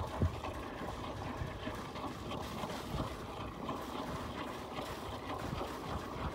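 Wind buffeting the microphone over open water: low, uneven rumbling gusts over a steady hiss.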